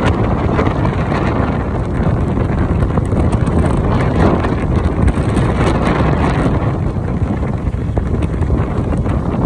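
Wind rushing and buffeting on the phone's microphone while riding an open two-wheeler, a loud steady noise heaviest in the low end, with vehicle and road noise beneath.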